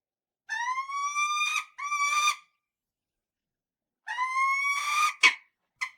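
Falcon screeching in a series of calls: a long call lasting about a second and rising slightly in pitch, followed at once by a shorter one, then after a pause another long call ending in a sharp harsh note, and a short call near the end.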